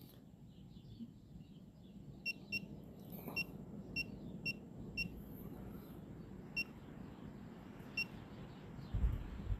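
About eight short, high electronic beeps at uneven intervals, all on the same pitch, over faint low wind noise. A dull low thump comes near the end.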